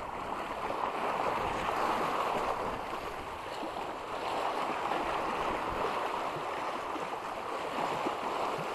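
Steady wash of small sea waves and moving water, with a few faint clicks.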